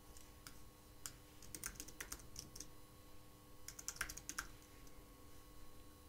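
Computer keyboard typing: faint keystrokes in two quick runs, about one and a half seconds in and again around four seconds in, with a few single taps between.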